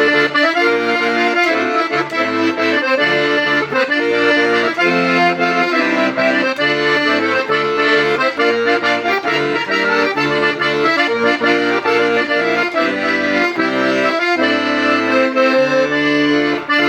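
Hohner Concerto III piano accordion playing a tune, a melody on the treble reeds over a rhythmic accompaniment of bass notes and chords.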